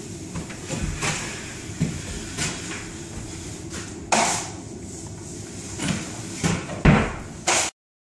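Steel drywall taping knife scraping and clacking against a mud pan: a string of scattered knocks and scrapes, with the loudest clacks near the end, then the sound cuts off suddenly.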